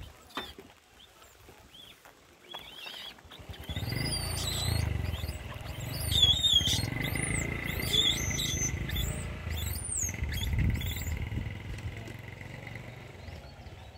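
Animal calls: a run of short, high, sliding chirps and squeaks over a low rumble, starting a few seconds in and thinning out past the middle.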